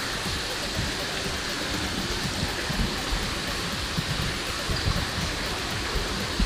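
Steady rush of water splashing from fountain jets spouting out of dragon sculptures into a pond, with scattered low thumps.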